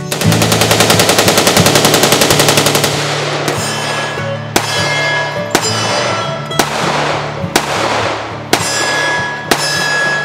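Gunfire over background music. The first three seconds are a rapid, continuous string of shots. After that, single semi-automatic pistol shots come about a second apart, seven in all, each followed by a short ring.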